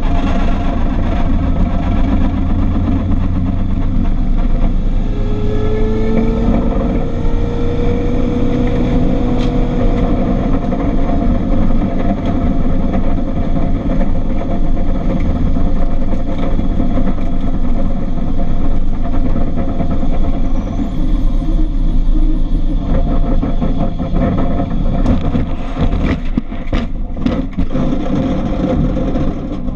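Car engine running hard under load during track driving, heard from inside the cabin along with road noise; its pitch climbs slowly for several seconds about a quarter of the way in, and a run of short sharp knocks comes near the end.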